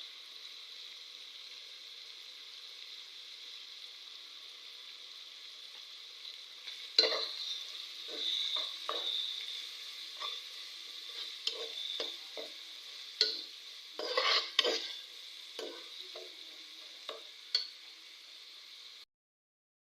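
Food sizzling as it fries in a pan; from about seven seconds in, a spoon scrapes and knocks against the pan again and again as it is stirred. The sound cuts off suddenly near the end.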